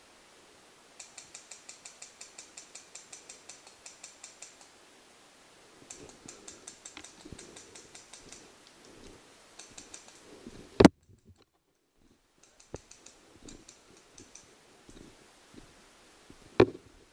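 Paintball markers firing rapid strings of shots, about eight a second, in several bursts. Two much louder single sharp pops come close by, about six seconds apart.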